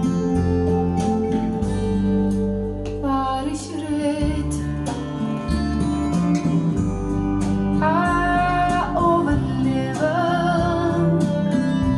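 A song with guitar, bass and a singing voice played through Monitor Audio Platinum PL300 II floor-standing loudspeakers, heard in the room. The singing comes in about three seconds in and again near the end.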